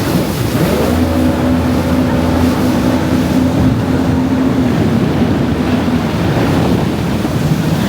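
Jet ski running at speed: a steady engine note over heavy wind buffeting on the microphone and rushing water. The engine note fades out a second or so before the end.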